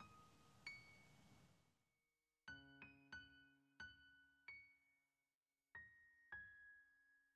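Quiet background music: sparse single piano notes, each struck and left to ring out. A faint outdoor noise fades away over the first two seconds.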